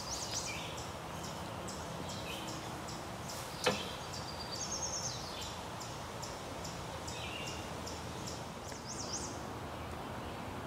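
Woodland ambience: birds calling over a steady background hiss, with a short high note repeated about twice a second. A single sharp click sounds about a third of the way in.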